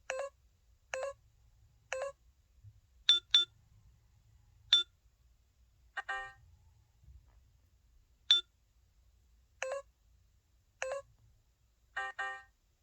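Short electronic alert tones from the SK-900 mobile phone's speaker: a string of single chiming notes about a second apart, with a quick pair of notes twice, played as its built-in alert and key sounds are previewed.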